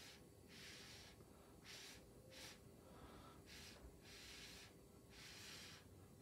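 Faint, short puffs of breath blown through a plastic drinking straw onto wet acrylic pour paint, about six of them at an uneven pace, some quick and some longer.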